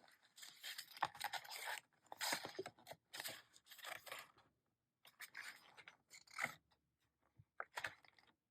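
Glossy pages of an album photo book being turned by hand, one after another. Each turn makes a short papery rustle and swish, about one a second, with brief pauses between them.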